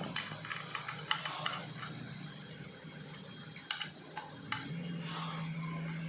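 Small metallic clicks and taps of a hex key working a disc brake caliper's mounting bolt. A steady low hum starts a little before five seconds in.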